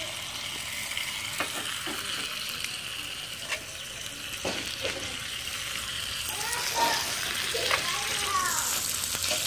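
Ribeye steak sizzling steadily in a hot cast iron skillet, with a few light clicks of metal tongs and a knife against the pan.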